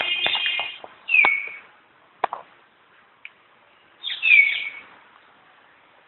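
A bird calling three times, each call a cluster of high tones that slides down in pitch at its end. A single sharp click falls between the calls.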